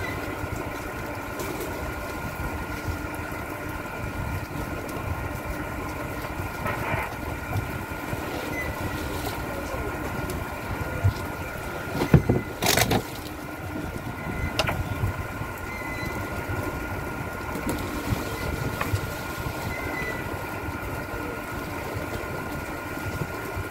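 A fishing boat's engine running steadily with a constant hum, under the chatter of the crew hauling the net. A few sharp knocks sound about halfway through.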